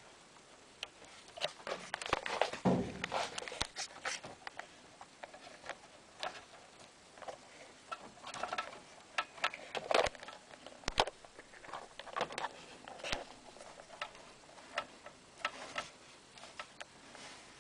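Handling noise inside an opened inverter welding machine: fingers pushing and moving wires and cable bundles, making irregular clicks, taps and rustles in clusters. No fan or transformer hum can be heard, so the machine is not running.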